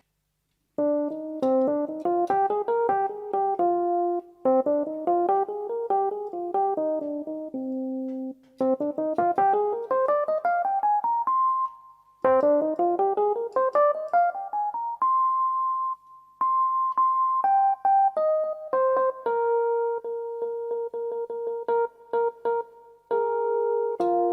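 Electric piano tone on a Casio AiX-technology keyboard. After a short pause about a second in, it plays broken-chord patterns and two rising runs, then holds a few high notes and ends on repeated notes and chords.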